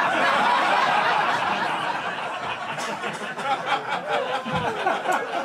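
Comedy club audience laughing at a punchline, loudest at the start and dying down over a few seconds.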